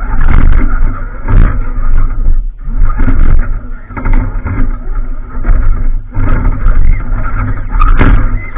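Off-road vehicle engine running loudly under load as it crawls over rocks, the level surging and dipping, with several sharp knocks and rattles from the rack and chassis striking rocks.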